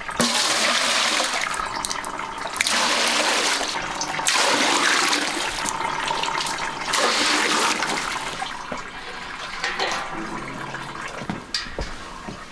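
Water poured from a metal scoop into a steel bucket, splashing in about four pours over the first eight seconds or so, then quieter.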